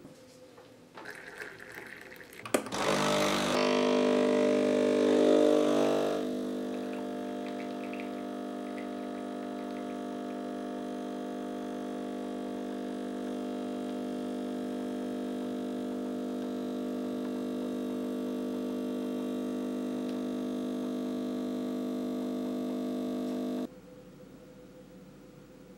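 Sage Barista Express espresso machine's vibratory pump running through a shot. It starts loud and noisy for the first few seconds, settles into a steady buzzing hum as the espresso flows, and cuts off sharply about twenty seconds later. Before it starts there are a few clicks of handling.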